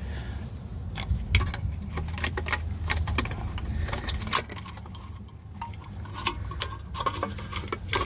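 Irregular metal clicks, taps and scrapes of a screwdriver prying at the parking brake shoe hardware on a Jeep Grand Cherokee ZJ's rear drum-in-hat brake, working a retaining clip loose, over a low steady rumble.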